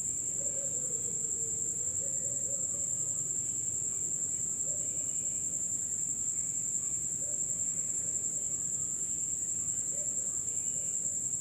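A steady high-pitched tone that never changes, over a low, even background hum. No frying sizzle or spoon clatter stands out.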